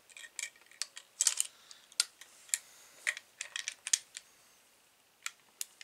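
Irregular small metal clicks and taps from a Remington 1858 New Model Army cap-and-ball revolver and its cylinder being handled, with a pause of about a second near the end.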